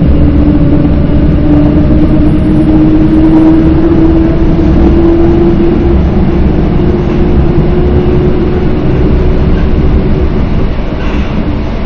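EN57 electric multiple unit running, heard from inside the carriage: a steady rumble and rattle, with a whine that rises in pitch over the first half as the train picks up speed, then holds steady.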